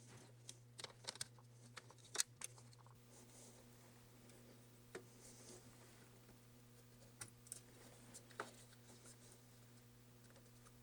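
Scattered light clicks and taps of small laptop parts and connectors being handled during reassembly, the sharpest about two seconds in, over a steady low hum.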